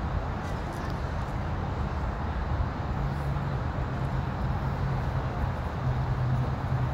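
Steady low mechanical rumble with a held hum that grows stronger about three seconds in.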